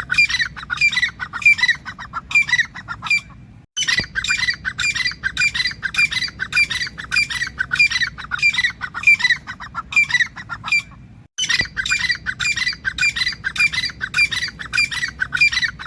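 Grey francolin (teetar) calling: a loud, fast run of harsh, repeated call notes that breaks off abruptly twice.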